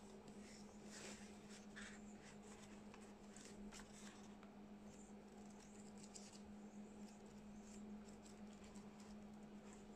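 Faint rustling and flicking of a paperback book's pages being turned by hand, over a steady low hum.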